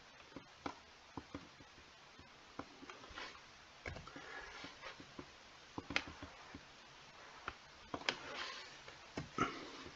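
Faint, irregular clicks of a computer mouse and keyboard as holes in a design are selected and deleted one by one.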